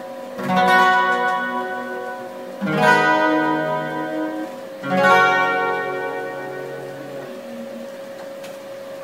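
Acoustic guitar playing the song's closing chords: three strummed chords about two seconds apart, the last left to ring and fade away.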